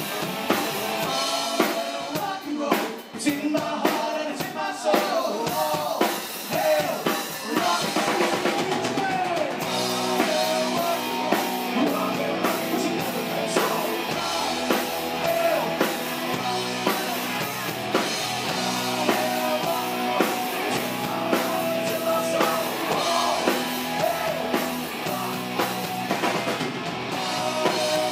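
Live rock band playing: electric guitars, bass guitar and drum kit, with a man singing into a microphone. Drum hits are densest in the first few seconds; about ten seconds in the guitars and bass settle into held chords over a steady beat.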